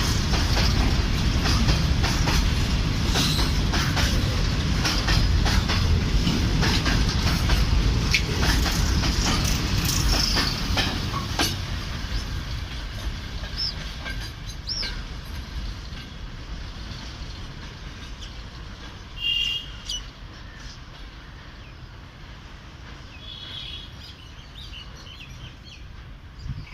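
Freight train rolling past with wheels clattering over the rails. It is loud for the first dozen seconds, then fades steadily as the train draws away. A brief high-pitched call sounds about two-thirds of the way through.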